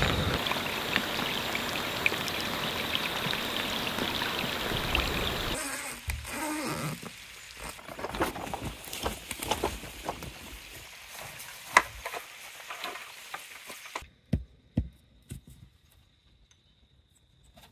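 Rain falling on a river, a steady hiss of countless drops hitting the water, for about the first five and a half seconds. It then cuts to much quieter sound with scattered small clicks and rustles of handling, and from about fourteen seconds in to near silence broken by a few faint ticks.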